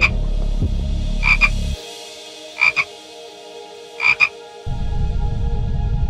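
Tree frog calling: four short double-pulsed croaks about a second and a half apart. A low background rumble drops out after the second croak and comes back near the end.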